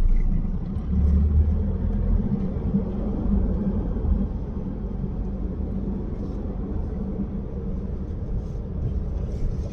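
Car driving, with a steady low rumble of engine and road noise that swells slightly about a second in.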